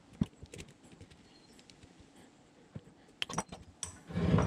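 Scattered light clicks and taps as the spring-loaded roller of a car's rear door sunshade is worked at a bench vise, then a louder half-second scrape near the end as the vise is opened.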